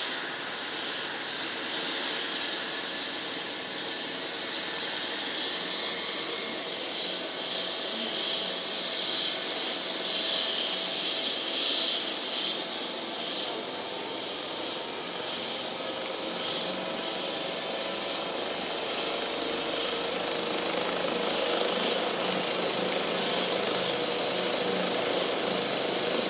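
Rescue helicopter's turbine engines and rotor running on the helipad before take-off, a steady high turbine hiss. In the second half a faint tone climbs slowly in pitch.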